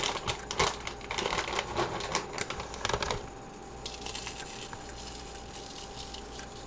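Crisp Texas toast croutons crackling and snapping as they are broken up by hand: a quick run of sharp crunchy snaps for about the first three seconds, then only faint crumbling.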